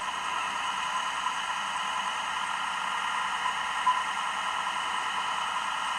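Steady hiss with no speech, and a brief click about four seconds in.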